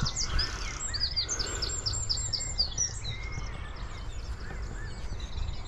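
Songbirds singing: quick, high chirps repeated several times a second, densest in the first half and fainter toward the end, over a low steady outdoor background.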